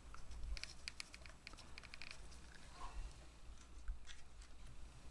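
Faint, scattered small clicks and ticks from handling a plastic squeeze bottle of gel super glue as it is worked along a gouge in the wood and lifted away.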